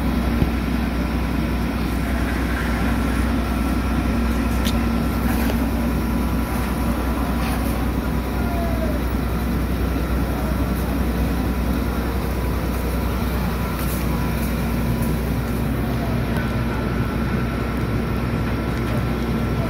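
A steady engine hum with a constant drone, running without a break, and a few faint ticks.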